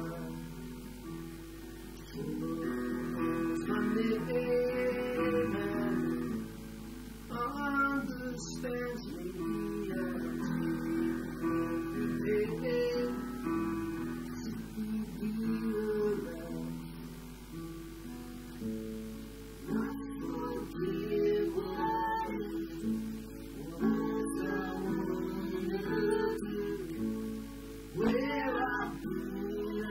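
Acoustic guitar strummed together with a Roland digital piano playing chords, the two instruments in an acoustic folk-punk duet.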